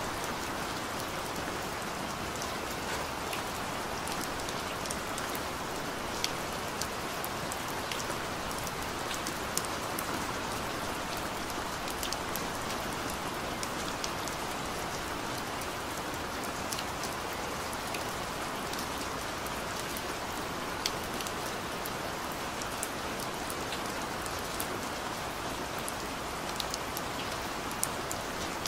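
Steady rain, an even hiss, with scattered sharp ticks of single drops landing near the microphone.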